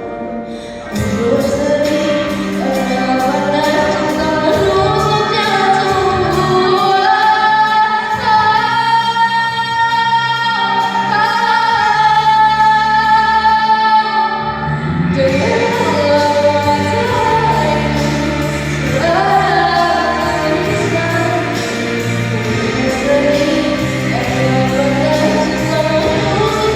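A female vocalist sings a slow song over instrumental backing. The backing comes in about a second in, and she holds one long note through the middle.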